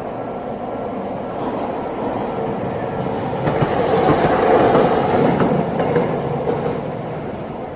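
Single-car Toei 8800-series tram running past on street-level track, its rumble swelling to a peak about four to five seconds in, with several sharp wheel clicks on the rails at the loudest point, then fading away.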